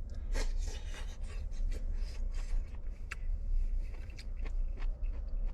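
Irregular small clicks and scrapes of a spoon or chopsticks against a bowl while eating soup, over a steady low rumble.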